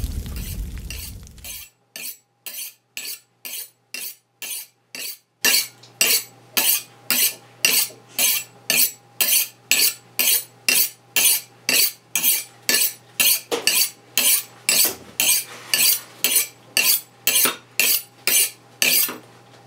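A knife being sharpened on a steel rod: rhythmic metal-on-metal scraping strokes, quieter at first and then louder and steady at about two strokes a second from about five seconds in.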